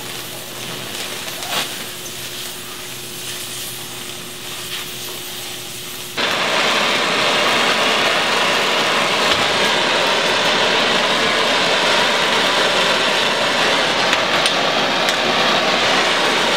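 Oxy-acetylene cutting torch hissing while cutting steel plate. About six seconds in, the hiss suddenly becomes much louder and stays steady.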